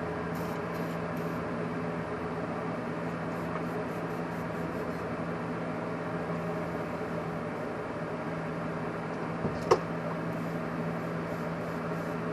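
Steady background hum with a constant low tone, and one sharp tap about ten seconds in.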